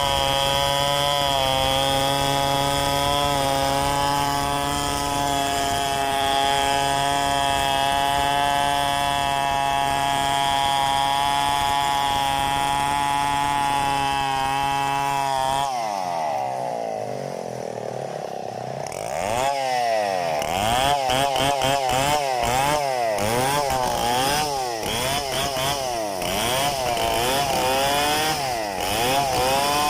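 Stihl 720 two-stroke chainsaw running at a steady high speed while ripping a log freehand. About halfway through its pitch falls away as the throttle drops. From about two-thirds in it revs up and down again and again.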